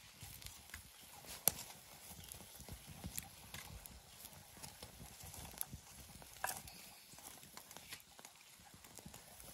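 Wood fire crackling, with scattered sharp pops at irregular intervals from the glowing embers under a skewered fish, over a low rumble.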